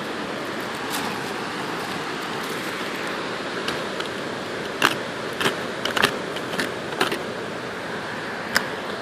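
Wind buffeting the microphone, a steady rushing noise, with a handful of sharp clicks and snaps in the second half.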